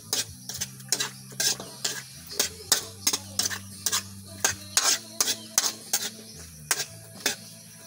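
A cooking utensil scraping and knocking against a wok, stirring vegetables as they fry, in quick irregular strokes about three a second.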